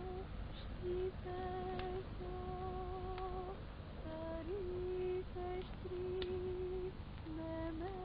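Soft background music: a slow, lone melody of long held notes with a slight waver, in the manner of a lullaby.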